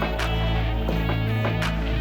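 Background music: electronic track with held bass notes and a steady beat of sharp percussive hits.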